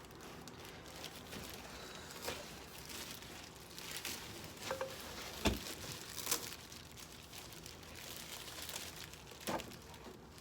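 Packaging rustling and crinkling as parts are pulled out of a box, with a few knocks; the loudest is a thump about five and a half seconds in.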